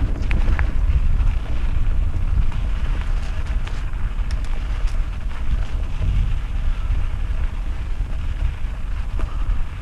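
Wind buffeting an action camera's microphone: a steady, loud low rumble, with a few faint ticks.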